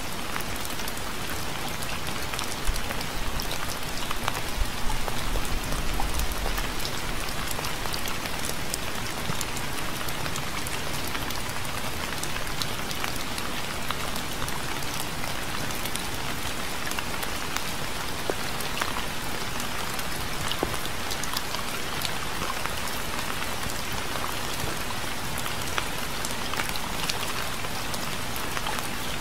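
Steady rain falling on a surface, an even hiss dotted with the patter of individual drops. A brief low rumble comes a few seconds in.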